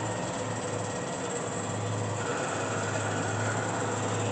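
Cosen AH-250R horizontal band saw running under power with a steady mechanical hum; a higher steady whine joins in about halfway through.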